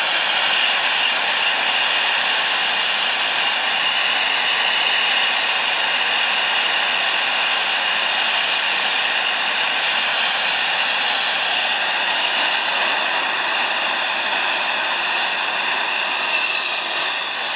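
Homemade jet engines running at a steady high speed: a loud, even roar with a high-pitched whine over it, easing slightly about two-thirds of the way through.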